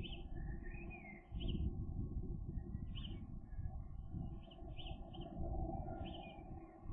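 Birds chirping in short, high calls, a few at a time every second or so, some sliding in pitch, over a steady low rumble.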